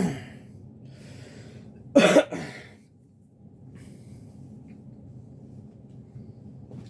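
A man's single cough about two seconds in, over the low steady whir of a 52-inch Homestead Universal ceiling fan coasting unpowered in a spin-down.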